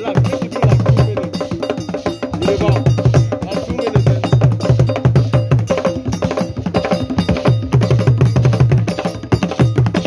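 Ghanaian traditional drum ensemble playing together: several large basket-covered drums struck with curved sticks and hands, with repeated runs of fast, deep strokes over a steady, clicking pattern.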